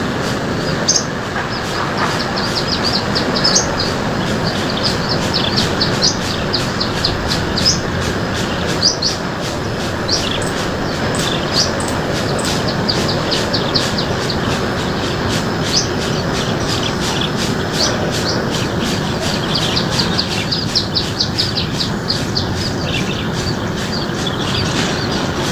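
Small birds chirping in quick series of short, high notes throughout, over a loud, steady rushing noise.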